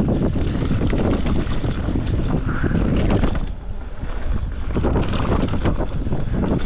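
Wind buffeting the microphone of a camera on a mountain bike rider going downhill, over a constant low rumble with quick rattling clicks and knocks from the bike on rough trail. It eases briefly about three and a half seconds in, then picks up again.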